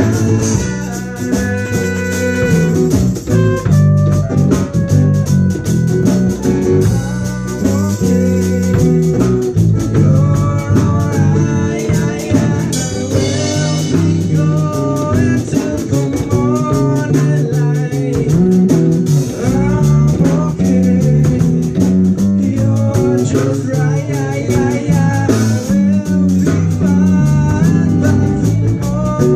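A live band playing a blues-style instrumental break, a guitar carrying a melody with bending notes over the band's steady backing.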